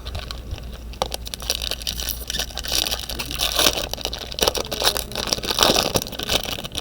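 Trading-card pack wrappers crinkling and rustling as they are handled and torn open, a dense crackle of many quick clicks from about a second in.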